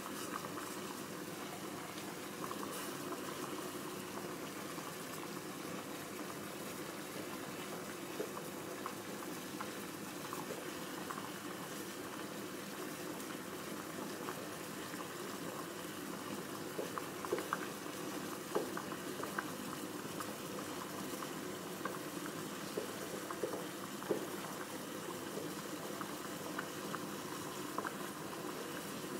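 Water simmering in a pan used as a double boiler to melt margarine in a cup: steady bubbling with scattered small pops and clicks, more of them in the second half.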